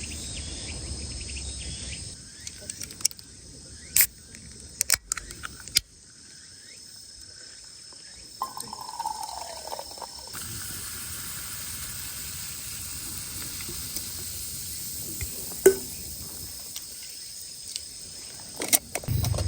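Crickets and other insects trilling steadily, with a few scattered sharp clicks and knocks of handled camp gear.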